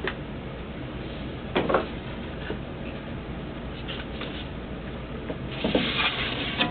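Scattered knocks and a scraping clatter of wood and tools being handled while a cutting setup is readjusted, the loudest about a second and a half in and near the end, over a low steady hum.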